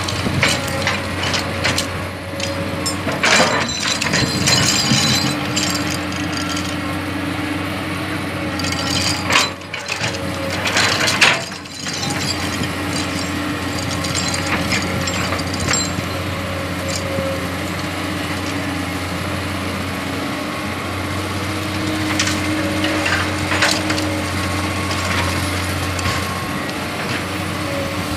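Komatsu crawler excavator's diesel engine working under load, a steady drone with a hydraulic whine that swells and fades as the boom and bucket move. The steel bucket scrapes and knocks through rock and soil with scattered clanks and clattering stones.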